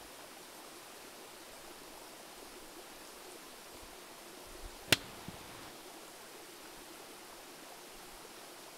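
Steady rush of river water, with a single sharp click about five seconds in.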